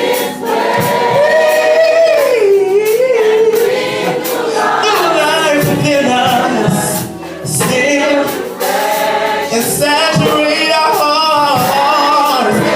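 Gospel choir singing with a lead vocalist, the voices bending and carrying vibrato.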